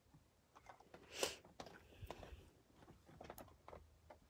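Near silence: quiet room tone with a few faint clicks and one soft rustle about a second in.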